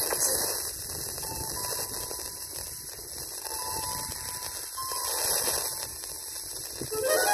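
A TEF6686 FM receiver tuned to a weak, distant signal gives hiss and static, with faint snatches of tone breaking through the noise. Near the end a rising glide leads into steadier tones as a clearer signal comes in.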